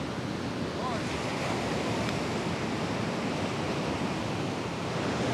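Ocean waves washing onto the shore in a steady rush, with wind blowing across the microphone.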